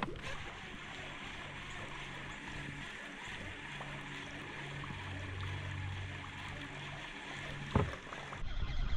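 Steady water noise and a low hum from a fishing boat on the lake, with one sharp knock near the end.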